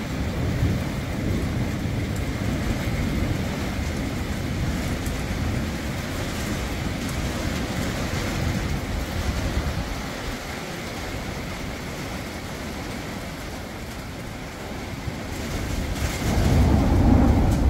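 Storm wind and rain: a steady rushing noise with a low rumble, swelling louder near the end.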